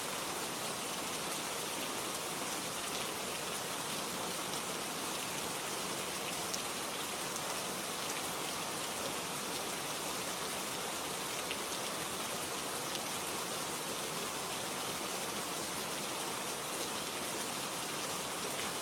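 Steady rainfall: an even hiss of rain with scattered individual drops hitting a surface.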